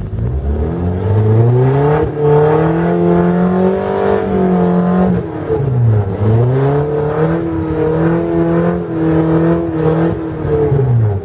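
Volvo drift car's engine revving hard on ice. The revs climb for several seconds, dip sharply about halfway through, climb again and hold high, then fall away near the end.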